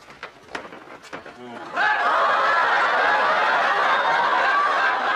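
Studio audience laughing, breaking out suddenly about two seconds in and holding loud and steady. Before it come a few light knocks.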